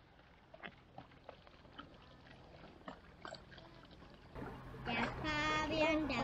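A few faint water drips and small ticks around an inflatable kayak drifting at rest, then a child starts singing about four and a half seconds in.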